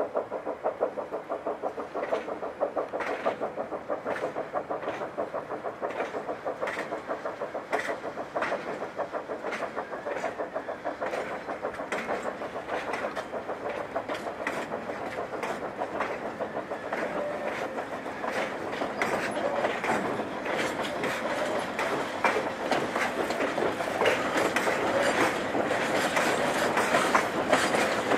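Steam-hauled coal train approaching on the mine railway: a China Railways JS-class steam locomotive working with a fast even beat, and the wheels of its dump wagons clicking over the rails. It grows louder over the last ten seconds as the wagons come close.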